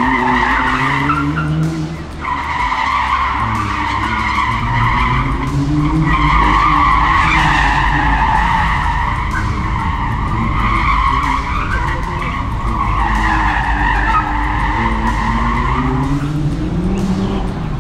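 Nissan GT-R R35 Nismo's twin-turbo V6 revving up and down through a tight cone course, its tyres squealing on concrete in long spells through the turns, with brief breaks between them.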